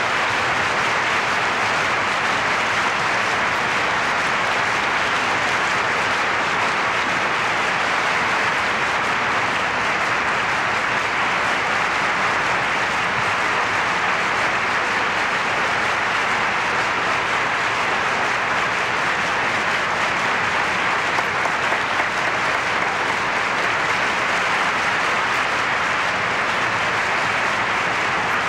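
Theatre audience applauding steadily, a dense even clapping that holds at the same level throughout.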